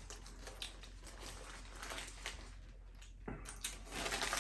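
Faint sounds of a person eating a footlong sub sandwich: chewing, with a few soft clicks and rustles.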